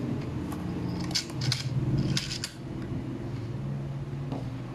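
Small plastic Polly Pocket accessories clicking and tapping against the plastic Megamall playset as they are picked up and set in place, a handful of light clicks in the first two and a half seconds. A steady low hum lies underneath.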